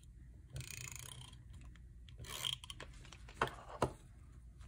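Faint handling of washi tape on planner paper: two short soft rustling rubs, then two small clicks about half a second apart.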